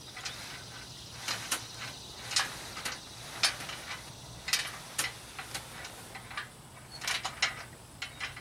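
Irregular sharp clicks and clanks of metal as a boat trailer is moved out from under an aluminum jon boat, over a faint steady low hum.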